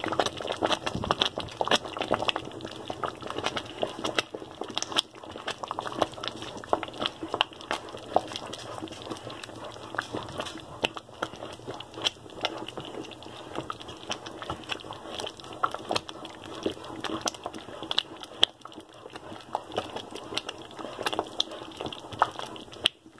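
A wooden spoon stirring thick, simmering rice pudding in a metal pot: wet stirring with many small irregular ticks.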